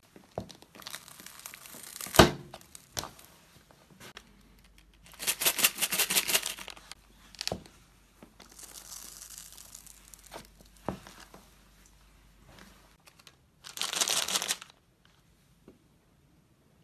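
A sneaker stepping on and crushing candy and plastic candy wrappers on a wooden floor: wrapper crinkling and tearing, one sharp loud crunch about two seconds in, and several bouts of crackling with scattered clicks.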